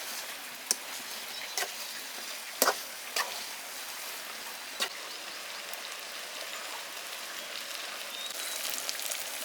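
Chicken and masala sizzling in a covered kadai as the chicken releases its water: a steady hiss with a few sharp pops in the first five seconds.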